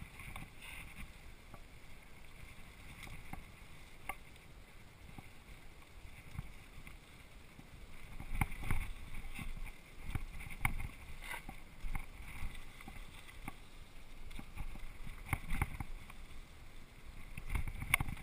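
Mountain bike rolling downhill on a dirt trail: steady tyre and rolling noise with the bike rattling and knocking over bumps, heaviest in bouts about halfway through and near the end.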